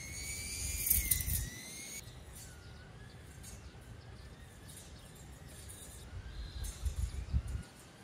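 Outdoor country ambience with gusts of wind buffeting the microphone, strongest about a second in and again near the end. A high, wavering whistle-like tone sounds over the first two seconds and cuts off abruptly, followed by faint bird calls.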